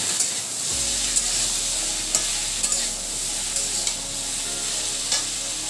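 Vegetables frying in oil in a metal kadai, stirred with a metal spatula: a steady sizzle with scraping and occasional sharp clicks of the spatula against the pan.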